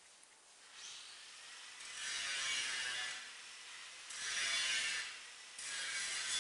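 Mouse trap glue board making machine running: a mechanical noise that swells and falls back in stretches of about a second, starting about two seconds in.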